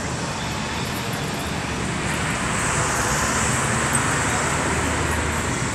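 Road traffic noise: a steady rush of passing vehicles that swells about two seconds in.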